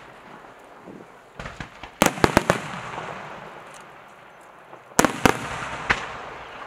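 Aerial fireworks shells bursting. A quick cluster of loud bangs comes about two seconds in, then two more bangs near five seconds and a last one a moment later, all over a steady background noise.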